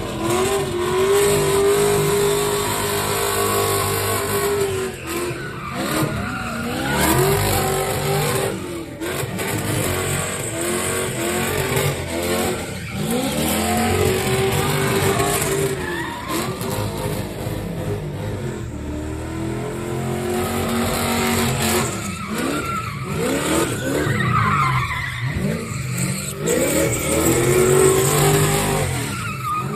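Fox-body Ford Mustang 5.0's V8 revving hard and repeatedly while it spins donuts, the engine pitch rising and falling every second or two, with tires screeching against the pavement.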